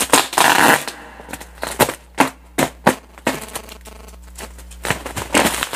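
Bubble wrap around a large parcel crinkling and crackling as hands pull and tear at it. A burst of rustling comes in the first second, then scattered sharp clicks.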